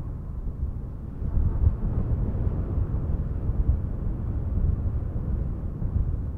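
A steady low rumble of noise, growing a little louder about a second and a half in.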